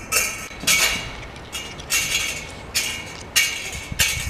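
Footsteps crunching on gravelly dirt, about one and a half steps a second at a steady walking pace.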